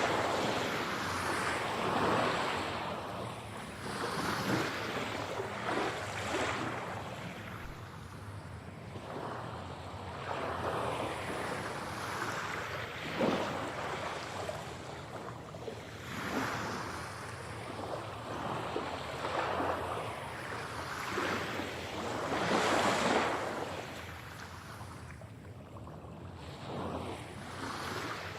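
Ocean waves breaking and washing up the shore, each surge swelling and falling away every few seconds, with the loudest wave about 23 seconds in.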